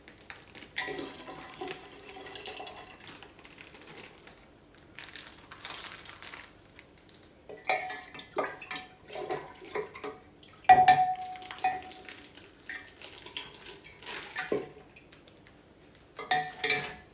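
Liquid poured from a plastic bag into a large glass jar, then a spoon stirring in the jar and knocking against the glass. The knocks ring briefly, and the loudest comes about two-thirds of the way through.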